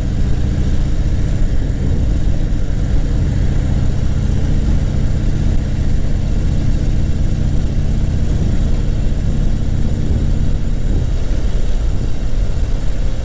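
Harley-Davidson Fat Bob's V-twin engine running steadily while the motorcycle cruises along a street.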